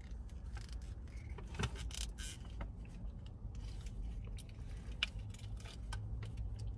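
Small plastic clicks and scrapes of a ranch dipping cup being handled and squeezed to get the dressing out, over a steady low hum in the car cabin.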